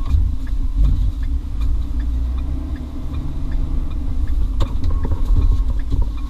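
Ford truck's V10 engine running steadily while driving, a low rumble heard from inside the cab, with a sharp knock or two from the truck body.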